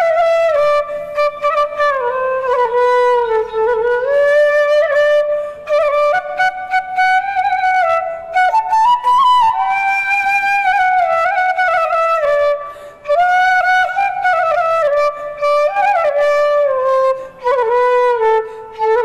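Bansuri (bamboo transverse flute) playing a Maithili tune, a single melodic line with slides and ornaments between notes. A few short breaks for breath, the longest about 13 seconds in.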